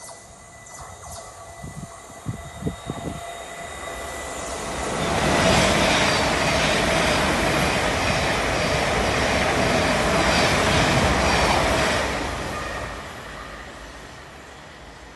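Class 700 electric multiple unit passing at speed: a rush of wheels on rail that builds from about four seconds in, holds loud and steady for about seven seconds, then fades as the train moves away. A few sharp thumps come a couple of seconds in, before the train arrives.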